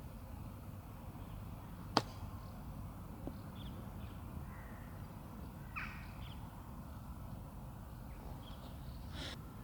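A golf club strikes a ball once, a single sharp click about two seconds in, over steady low outdoor background noise.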